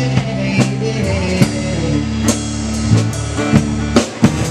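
Live rock band playing an instrumental gap between sung lines: drum kit with bass drum and snare hits under sustained guitar and bass.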